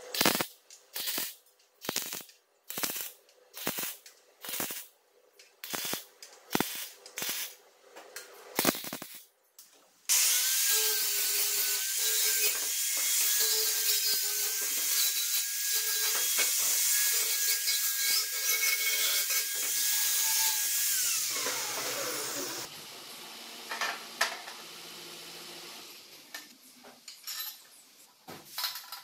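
A string of short MIG tack-weld bursts, about one a second, on a sheet-steel seat pan. Then an angle grinder runs steadily with a whine for about twelve seconds and winds down, its pitch falling as it stops.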